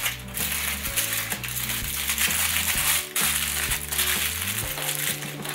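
Aluminium foil crinkling and rustling in irregular spurts as it is folded and pinched around a toy pony's hair, over background music with a stepping bass line.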